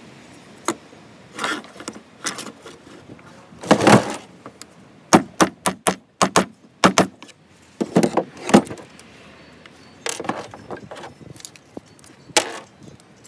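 Irregular clinks, clacks and knocks of hard objects being handled, about a dozen sharp strikes spread unevenly, a few with a brief metallic ring.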